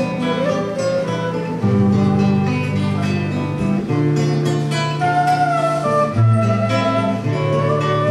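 Instrumental passage of a live acoustic song: nylon-string acoustic guitars plucking chords, with a wind instrument playing long held melody notes above them.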